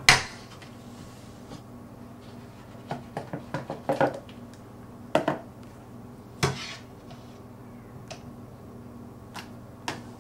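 Metal spoon knocking and scraping against a stainless steel pot and plastic tubs as ground raw meat is scooped out: a loud clatter right at the start, a quick run of clicks and knocks a few seconds in, a couple more knocks after that, then a few light taps near the end.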